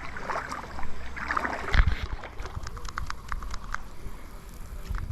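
Water splashing and sloshing, with a low thump about two seconds in, then a quick run of light clicks.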